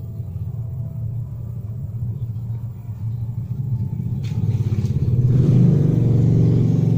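An engine running with a steady low rumble, growing louder about five seconds in.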